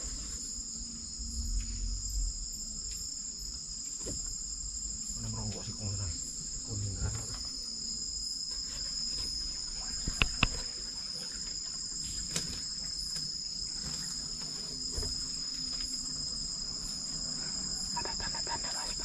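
Chorus of night insects trilling steadily at a high pitch, with two sharp knocks about halfway through.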